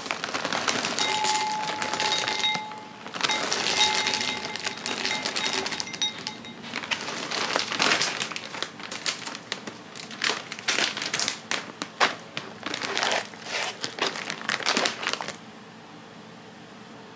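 Black sugar caramel popcorn poured from its crinkly bag into a glass bowl: a dense rattle of kernels and bag crinkling in two pours, then separate crinkles and taps that stop about fifteen seconds in.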